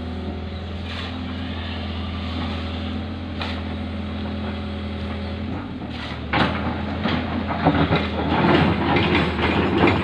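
Hitachi hydraulic excavator's diesel engine running steadily. From about six seconds in its note changes and stones knock and clatter loudly and unevenly as the bucket works the river boulders.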